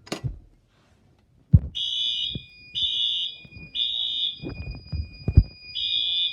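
A pull station is pulled with a sharp knock, and a Wheelock horn-strobe fire alarm horn starts sounding the temporal-3 evacuation pattern: three high beeps, a pause, then the next beep. A fainter steady high tone runs beneath the beeps, and there are a few low thumps of handling.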